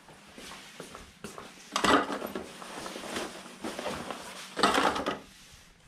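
Boat-kit items (the carry bag and its contents) being handled and set down on a pile on scales: a series of short clattering, rustling bursts, the loudest about two seconds in and again near the end.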